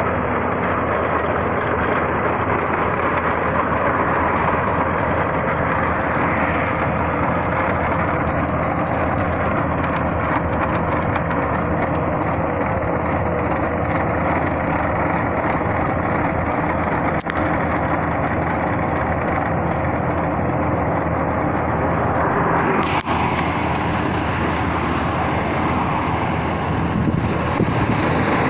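Bobcat S650 skid-steer loader's diesel engine running hard while its planer attachment mills asphalt: a steady, loud drone of engine and grinding cutter drum. About three-quarters of the way through, the sound turns harsher and brighter.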